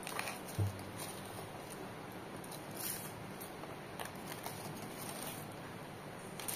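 Aluminium foil crinkling and rustling faintly in small scattered crackles as it is peeled away from around the base of a cheesecake, with one soft low thump about half a second in.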